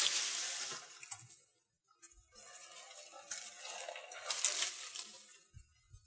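Leafy branches rustling and twigs crackling and snapping as an African elephant tears foliage from a tree with its trunk. It comes in two stretches with a short break about two seconds in.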